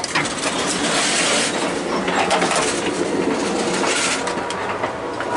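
Loud, steady running noise of an Amtrak Superliner train on the track, heard in the connecting passage between two cars. It rises sharply at the start as the end door is opened by its push button.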